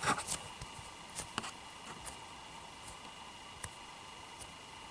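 Homemade fluffy slime squeezed and pulled in the hands, giving a few faint sticky squishes and small clicks, the clearest right at the start. These are the squishing sounds taken as the test of whether fluffy slime has turned out well.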